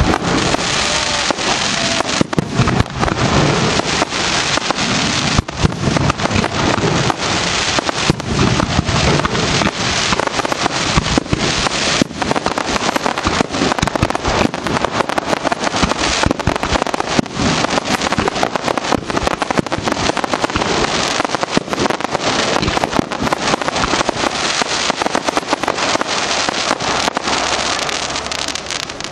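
Aerial fireworks display in a dense barrage: a continuous stream of sharp bangs from bursting shells over a steady hiss of burning effects, with no pause. The barrage tapers off near the end.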